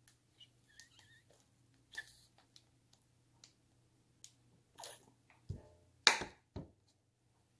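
Scattered small clicks and light taps of things being handled, with a few louder knocks in the last couple of seconds, the loudest about six seconds in.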